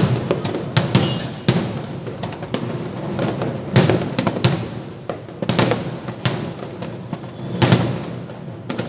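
Aerial fireworks bursting in quick, irregular succession: about a dozen sharp bangs, each trailing off in a rumbling echo.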